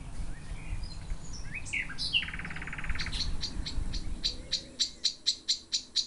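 Common nightingale singing: scattered high chirps, a fast buzzy trill about two seconds in, then a run of sharp repeated notes at about four a second.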